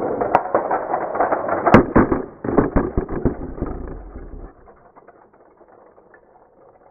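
Hot Wheels die-cast toy cars rolling down an orange plastic track, a dense rattling clatter of small wheels on plastic. About two and a half seconds in it breaks into separate clicks and knocks, which die away after about four and a half seconds.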